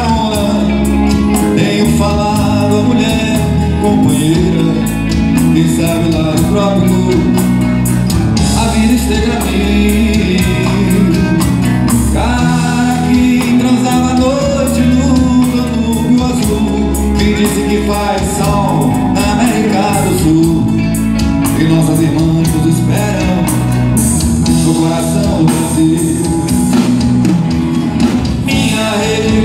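Live band playing Brazilian popular music (MPB) on stage, with acoustic guitar, electric guitars, keyboard and drums and a sung melody line.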